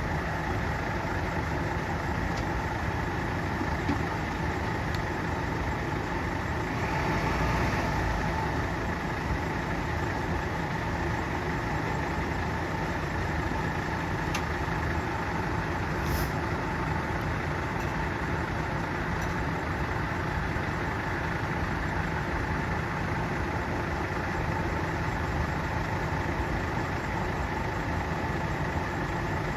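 Engine of a fire-service vehicle idling steadily, with a brief swell in loudness about seven seconds in.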